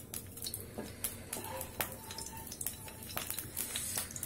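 Faint crackling and light clicks as cooking oil heats in a kadai over a high gas flame, with a wooden spatula drawn through the oil.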